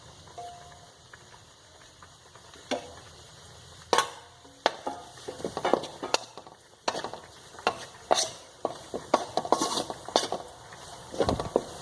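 A spoon knocking and scraping around a wok (cheenachatti), irregular strokes from about four seconds in, as a spiced onion mix is stirred in hot coconut oil, with faint sizzling underneath.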